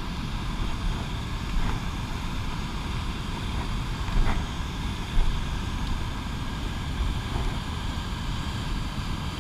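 Steady rushing of a waterfall and whitewater rapids, with wind buffeting the microphone as a low rumble. A couple of faint knocks sound about a second and a half in and again near the middle.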